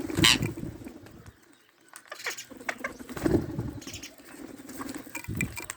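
Parrot making low cooing calls in two long stretches with a pause between, and a short sharp sound just after the start.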